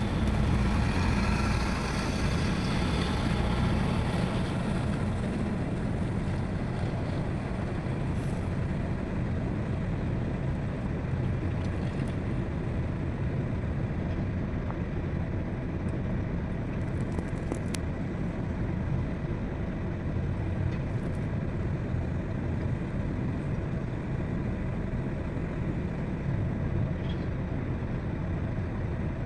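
Heavy diesel machinery running steadily with a low rumble, somewhat louder for the first few seconds before settling.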